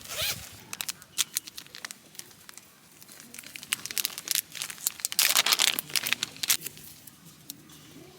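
Crinkling and rustling of something being handled, with scattered sharp clicks. A louder, denser spell of crinkling comes about five seconds in.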